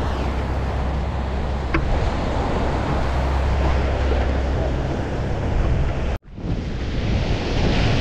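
Wind buffeting the camera's microphone over the wash of ocean surf breaking on the beach. The sound drops out for an instant a little after six seconds in, then the surf comes back fuller and brighter.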